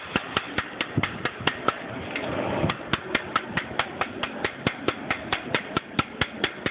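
A Master Lock padlock being struck over and over, a rapid, even series of sharp metallic knocks at about five a second, to jar it open without a key.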